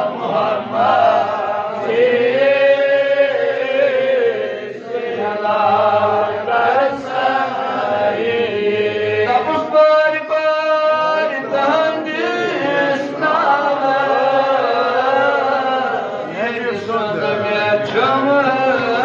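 A man's voice chanting a religious recitation through a microphone, in long, wavering held notes with short breaks for breath.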